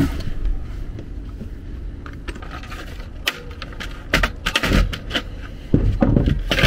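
Handling noise: a scattered run of clicks, taps and scrapes from pliers and a zone control board in its metal mounting being worked by hand, most of it in the second half, over a low steady rumble.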